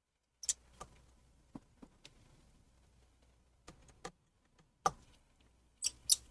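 Sharp little metal clicks and ticks of a small tri-point screwdriver working the tiny screws of an iPhone 7's home button bracket, about ten scattered clicks with the loudest near the end.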